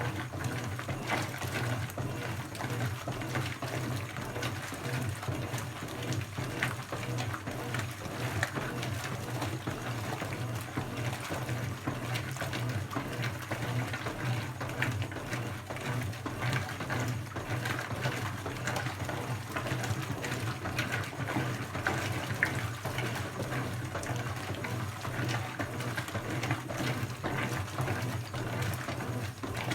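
Brastemp BWK17 17 kg washing machine running mid-cycle: a steady low motor hum under continuous water sloshing and splashing in the tub.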